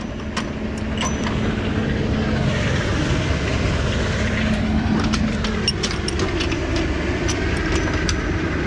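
A loaded dump truck's diesel engine running steadily, with a scattered series of sharp clicks and knocks, more of them in the second half.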